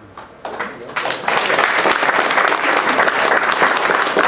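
Audience applause: a few scattered claps, swelling within about a second into full, steady clapping.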